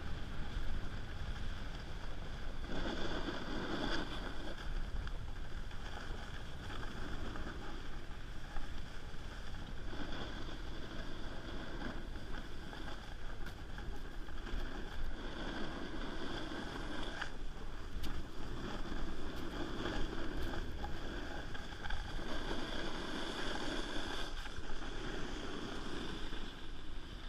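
Snowboard sliding and scraping over groomed snow, with wind rushing over the microphone; the noise swells every few seconds as the rider turns.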